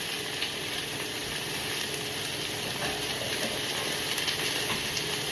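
Chicken frying in a pan: a steady sizzle with a few faint crackles.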